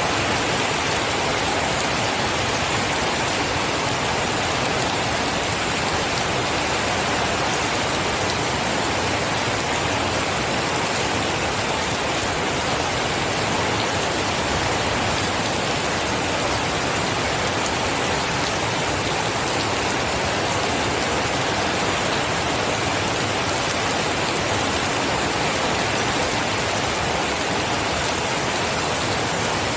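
Steady heavy rain, a dense even hiss without pauses or thunder.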